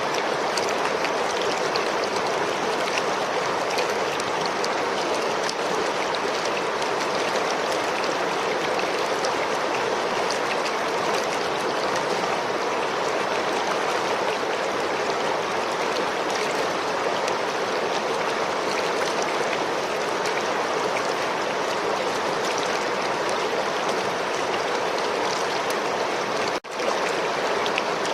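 River water flowing steadily, an even, continuous rush of running water, cutting out for an instant near the end.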